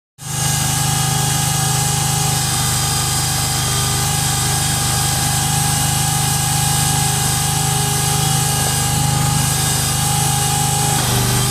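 AD-100 portable hydraulic drilling rig running steadily: an even machine drone with a steady whine above it.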